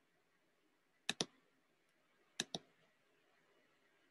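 Two quick double clicks of a computer mouse, about a second in and again about a second later, against a quiet room.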